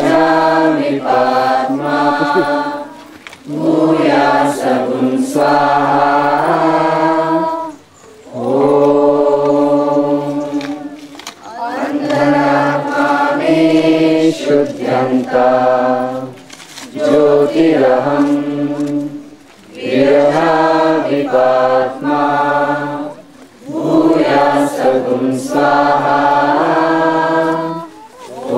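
A group of voices chanting in unison, in phrases of a few seconds with short breaks between them.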